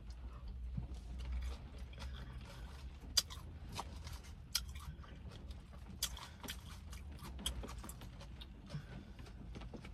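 Close chewing of a forkful of tuna salad, with many small crunches and mouth clicks scattered through it, over a low steady hum.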